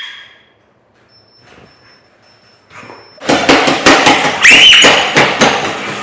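Feet thumping on a Cybex treadmill deck: a fast, loud run of thuds that starts suddenly about three seconds in, after a mostly quiet stretch. A brief high squeal sounds partway through the thudding.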